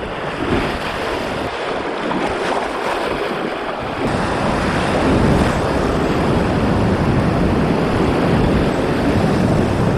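Rushing whitewater of a creek rapid: a steady, dense roar of water that grows louder about four seconds in.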